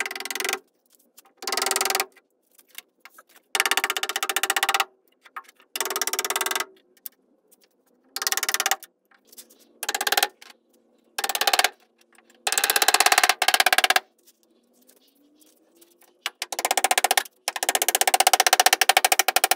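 Handheld pneumatic tool run in about ten short bursts of rapid rattling, each a second or so long, as it works a freshly laminated fibreglass stair module loose from its mold.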